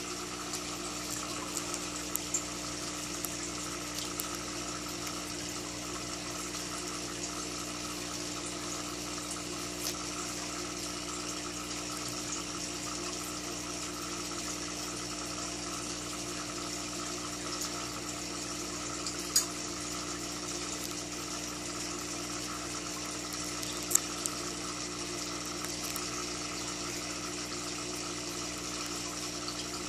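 Aquarium equipment running: an air stone bubbling and filter water trickling, over a steady electric hum. Two sharp taps stand out, one about 19 seconds in and another about 24 seconds in.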